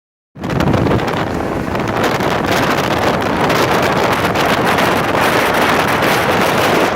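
Wind rushing over the microphone on a boat under way at sea, a loud steady rush with no breaks.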